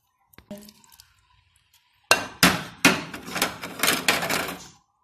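A dense run of knocks and clatter, about two seconds in and lasting nearly three seconds, as chopped tomatoes are tipped from a bowl into an earthenware handi and the bowl knocks on the clay pot.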